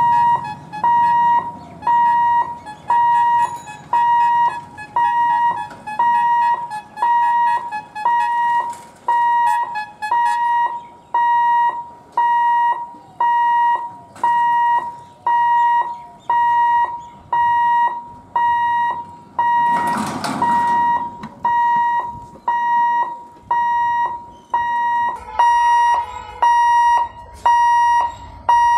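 Railway level-crossing warning bell ringing, a clear metallic tone struck a little over once a second, each strike fading before the next. About twenty seconds in, a brief burst of rushing noise cuts across it.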